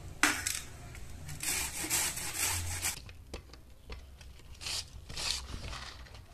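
Raw green mango scraped over a stainless-steel box grater in rasping strokes, quick and continuous at first, then a few slower separate strokes.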